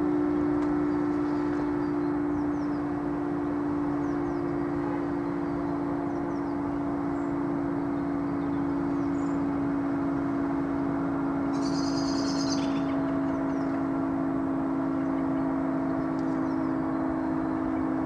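Broadmoor Siren A, a tower-mounted siren, sounding a steady, unbroken tone made of two close pitches held level. A brief high chirp comes about twelve seconds in.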